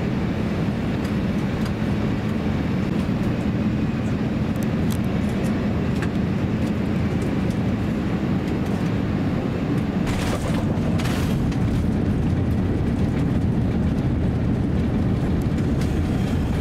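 Steady low rumble of cabin noise inside an Airbus A350-900, with two brief faint hisses about ten seconds in.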